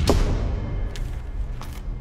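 A rubber stamp thuds down onto a paper file at the start, over a low, steady film-score drone. Two short clicks follow, about a second in and again a little later.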